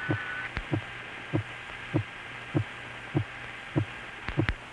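A steady heartbeat, one low thud about every 0.6 seconds (roughly 100 beats a minute), over a constant radio hiss with a faint steady high tone. A couple of sharp clicks come near the end.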